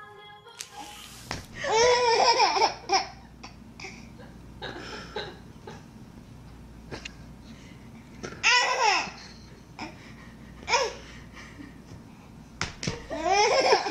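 A baby laughing in several bursts. The longest and loudest comes about two seconds in, with shorter laughs later on and near the end.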